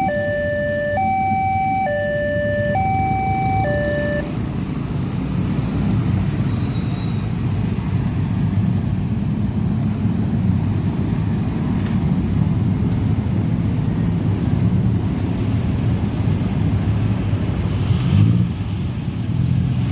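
Railway level crossing's electronic siren sounding a two-tone hi-lo wail, swapping pitch a little under once a second, then stopping about four seconds in. After that, steady road-traffic rumble, with one engine swelling and rising in pitch near the end.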